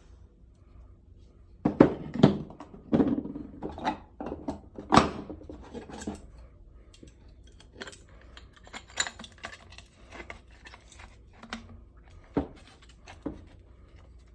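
Hard robot knee parts being handled and fitted together by hand: a cluster of knocks and clacks in the first few seconds, then lighter scattered clicks.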